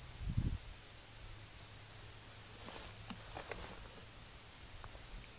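Insects trilling in a steady high-pitched chorus. A brief low thump comes about half a second in, with a few faint rustles and ticks later.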